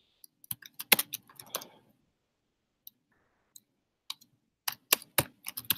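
Typing on a computer keyboard: a quick run of key clicks in the first two seconds, a pause of about two seconds with only a stray click or two, then another run of clicks near the end.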